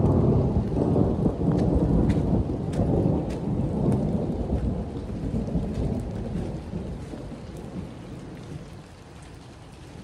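A long rolling rumble of thunder, loudest at first and dying away over about nine seconds, with scattered ticks of raindrops.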